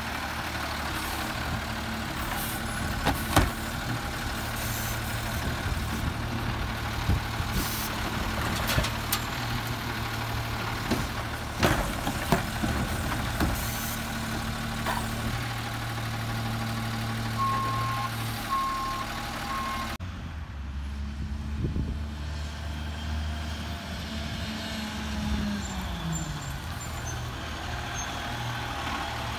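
2009 Autocar Autoreach automated side-loader garbage truck's diesel engine running, with several sharp knocks from its loading arm working carts. A few short beeps come shortly before an abrupt change in the sound, and the engine note falls near the end.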